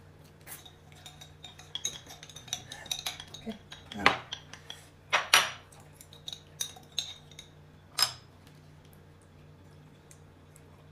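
Eating utensils clinking and knocking against bowls and dishes: a run of light clinks, with the loudest knocks about four, five and eight seconds in.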